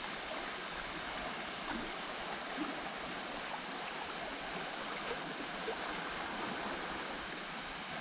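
Steady, even rush of a small waterfall.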